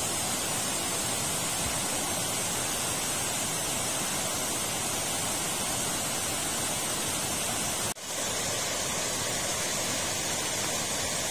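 Water pouring over a low concrete river weir, a steady rushing noise with a momentary break about eight seconds in.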